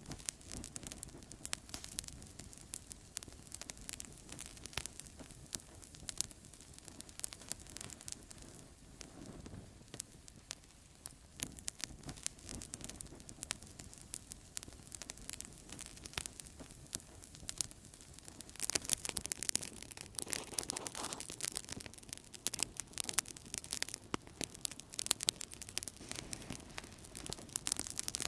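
Outdoor campfire crackling, with many small irregular pops and snaps over a soft hiss. The crackling gets denser and louder about two-thirds of the way in.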